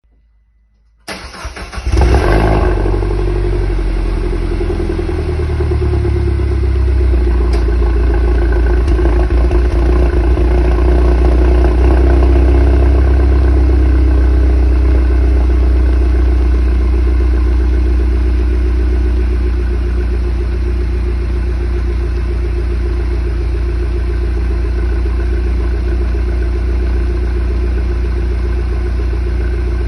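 Citroën DS3 Racing's stock 1.6-litre 16-valve turbocharged four-cylinder engine cranked by the starter about a second in, catching with a brief flare of revs, then idling steadily on its standard exhaust.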